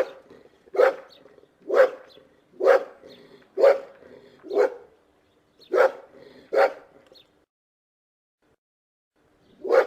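Boxer dog barking in short, evenly spaced barks, about one a second: six in a row, then two more after a slight gap. The barking stops for about two seconds and starts again right at the end.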